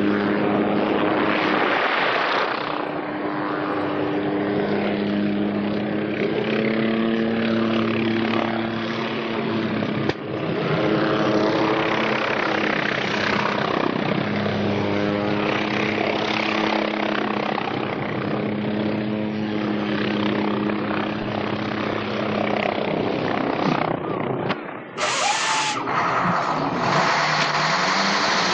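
Hughes 500C helicopter flying low, its turbine and rotors giving a steady drone with several held tones that waver slightly in pitch. About 24 seconds in the sound drops out briefly and changes to a different engine sound.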